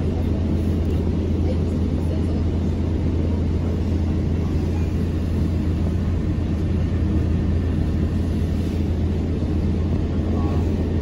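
Inside the cabin of a Mercedes-Benz Citaro city bus on the move: a steady low engine drone with rumbling road noise.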